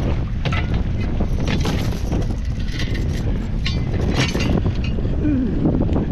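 Strong wind buffeting the microphone, a steady low rumble broken by scattered short crackles and rustles.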